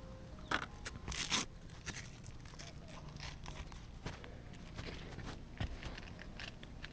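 Footsteps and scuffs on an asphalt-shingle roof, mixed with clothing rubbing against a handheld camera: scattered clicks and rustles, with a louder rustle about a second in and a low knock later.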